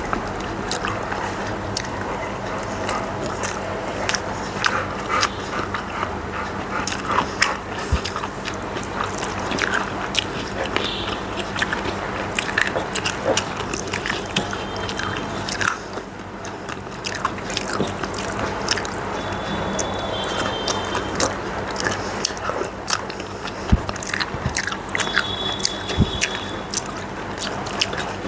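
Close-miked eating: chewing and lip smacks, with fingers mixing rice on a metal plate, a run of short wet clicks throughout over a faint steady low hum.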